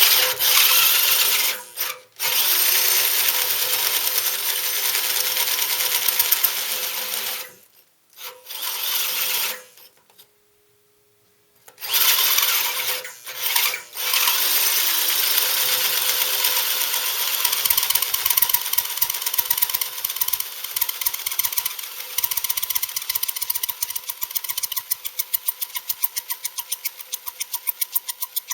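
Electric drill driving a hole saw through thick cast iron, cutting in bursts with a few brief stops, the drill running hot. Later the cut turns to a fast, even ticking rattle that slowly fades.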